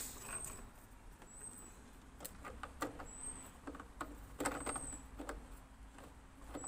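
Plastic fuel caps being handled after refuelling a backpack leaf blower: scattered light clicks and knocks as the jerry can cap is closed and the blower's fuel tank cap is screwed on. A faint high chirp repeats about every second and a half.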